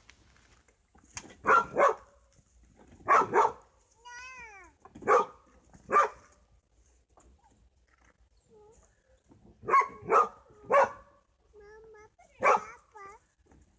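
Dogs barking in play: about a dozen short, loud barks, several in quick pairs, with a long falling whine about four seconds in and a few softer whines later on.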